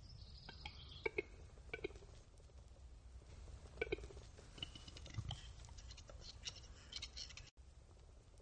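Western capercaillie cock's display song: sharp paired clicks a second or two apart, then a faster run of fine clicking and scratchy notes that breaks off suddenly near the end.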